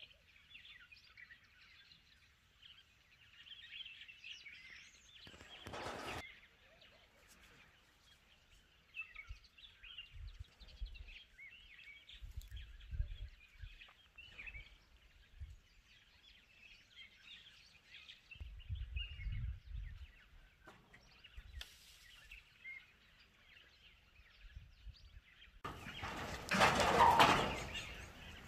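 Small birds chirping in the background, a scatter of short high calls throughout, with occasional low rumbles and a louder burst of noise near the end.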